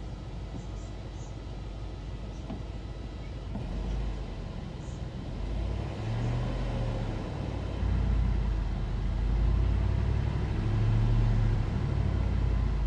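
Old Ford pickup's engine running, a low steady rumble that rises in several swells from about four seconds in, as if revved, and is loudest near the end.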